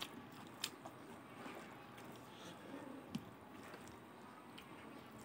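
Faint close-up eating sounds: a mouthful of rice and curry being chewed, with soft wet squishing and two sharp clicks, about half a second in and about three seconds in.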